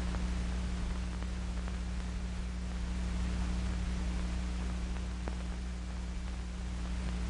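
Steady low hum and hiss of an old film soundtrack, with a few faint ticks.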